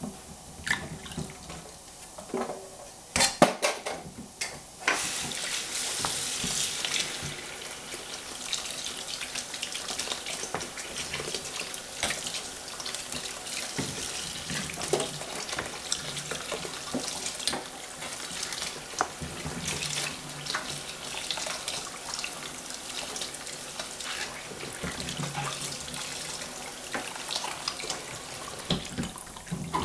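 Kitchen tap running into a stainless steel sink while squashes are rinsed, with scattered knocks and clatter. A few sharp knocks come first, and the water comes on about five seconds in.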